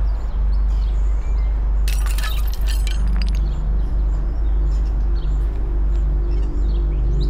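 Debris from a crash through the roof clattering and breaking, a quick burst of sharp cracks and clinks about two seconds in, over a steady low drone.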